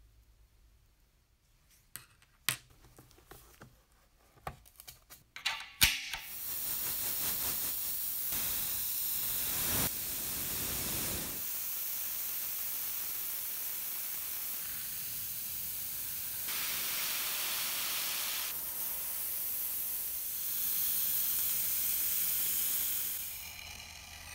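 A few sharp clicks and rattles, then a long steady hiss of paint being sprayed onto a toy locomotive's sheet-metal body shell, rising and falling a little in strength and stopping just before the end.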